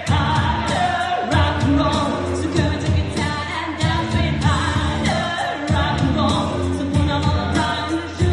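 Pop-rock song with a sung vocal line over a band with a steady beat.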